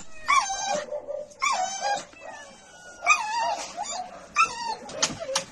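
A young animal in a pet carrier crying: four high, wavering, whining cries, with a couple of sharp clicks near the end.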